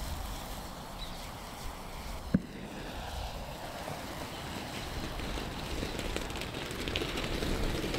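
Iron oxide–aluminium thermite burning in a crucible with a steady rushing hiss, and one sharp pop about two and a half seconds in. The noise grows a little louder toward the end as molten iron runs out onto dry ice below.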